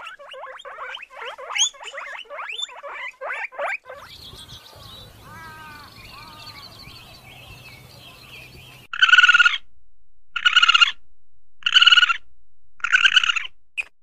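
A sequence of animal calls: first a rapid run of short high chirps, then softer warbling calls over a low steady hum, then four loud harsh calls spaced about a second and a half apart.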